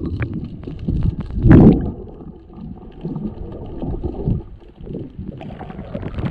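Muffled water noise heard with the microphone under water: a continuous rumbling and gurgling with small clicks, and a louder surge of water about a second and a half in.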